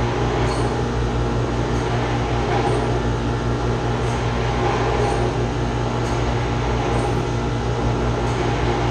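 Chiller's chilled-water pump running with a steady, loud mechanical hum and rumble. It is the pump the customer reported as shaking and making a lot of noise.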